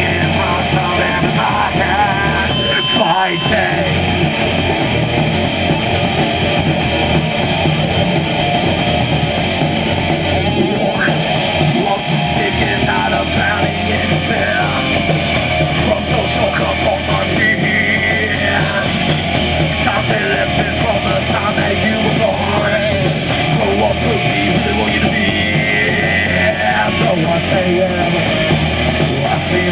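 Rock band playing live at full volume: electric guitar and a singer's vocals through a microphone.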